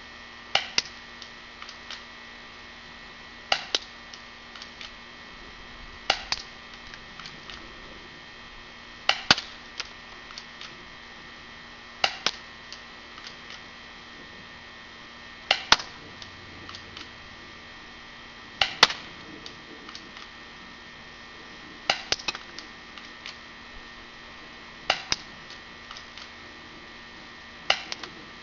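UHC 1911 spring-powered airsoft pistol fired about ten times, slowly and evenly, about three seconds apart. Each shot is a sharp snap followed by a couple of smaller clicks.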